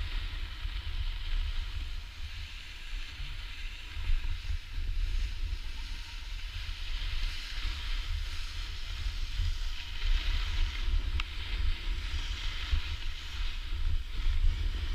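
Wind buffeting the microphone of a camera moving fast down a ski slope, a gusty rumble throughout, with the hiss of snowboard edges scraping over packed snow swelling and fading.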